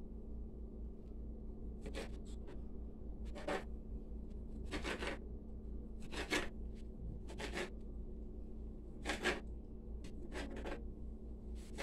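Kitchen knife slicing hot dogs into rounds on a plastic cutting board: a short scraping cut about every second and a half, over a steady low hum.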